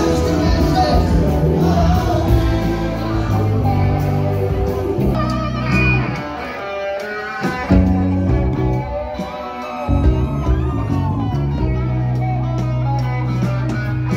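Live rock band playing, with electric guitars, bass and drums. The low end thins out briefly twice near the middle before the full band comes back in.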